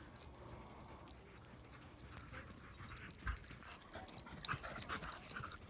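Dog faintly panting and whimpering, with scattered short clicks, busier in the second half.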